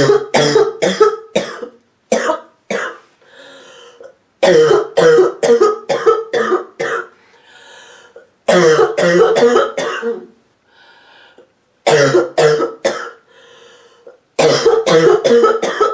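A sick woman's deep, barking, hacking cough, coming in about six fits of several rapid coughs each. Between fits she draws quieter breaths.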